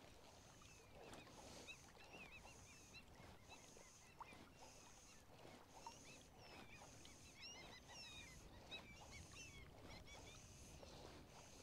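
Faint calls of small birds: many short high chirps, busiest a little past the middle, with a high note repeating about once a second. These are the alarm calls of birds mobbing an eagle overhead. Low lapping water and breeze run underneath.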